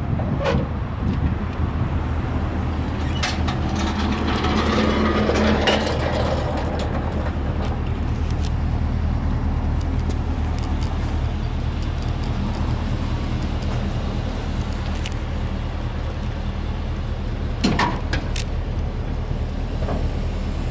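Pickup truck engine running steadily at idle, with a few sharp knocks and clunks as a vending machine is handled beside it.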